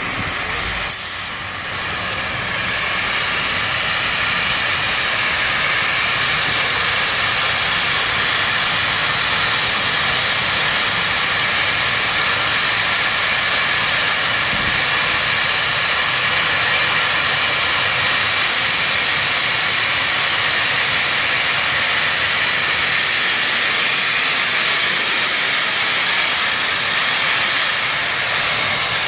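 Southern Pacific 4449, a GS-4 4-8-4 steam locomotive, hissing steam steadily. The hiss swells over the first few seconds and then holds.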